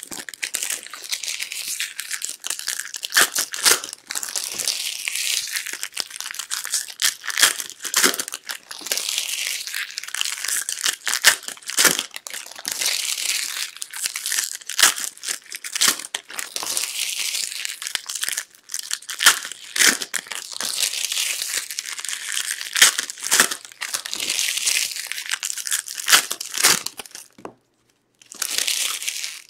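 Trading-card pack wrappers crinkling and tearing as Topps Stadium Club Chrome packs are opened one after another, mixed with quick clicks of cards being handled. The noise stops briefly about a second and a half before the end.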